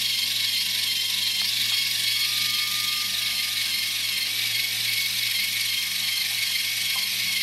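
Small geared electric motor drive of a model submarine's depth-stabiliser rig running steadily with a gear whir, with a few faint clicks: the balancing weight in the equalising tank being driven to bring the platform back to level.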